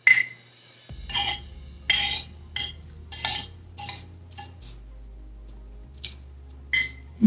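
Metal spoon and fork clinking and scraping against a plate while food is cut and scooped, about a dozen sharp clinks that come roughly once a second at first and thin out near the end.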